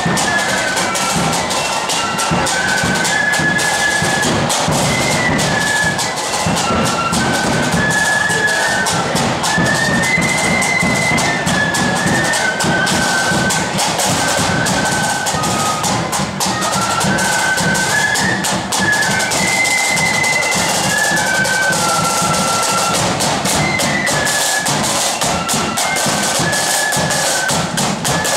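Blood-and-thunder flute band marching and playing: a high flute melody over busy side drums and a bass drum beat.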